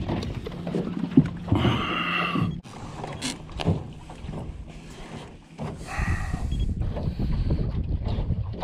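Wind buffeting the microphone and water slapping the hull of a small aluminum fishing boat, with a few brief handling knocks and squeaks as a caught fish is held up; the wind rumble grows louder about six seconds in.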